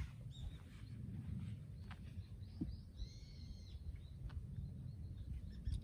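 Quiet open-air ambience: a low wind rumble on the microphone, with a few faint bird chirps about half a second in and again about three seconds in.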